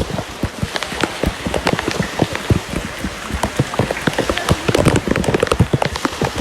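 Heavy rain pelting a hard surface close to the microphone: a loud, dense, irregular patter of individual drops over a steady hiss.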